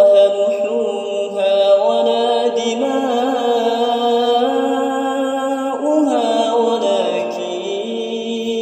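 A man's voice chanting Quran recitation in the Kurd melodic mode (maqam Kurd), holding long drawn-out notes that waver and step between pitches, with a falling turn about six seconds in.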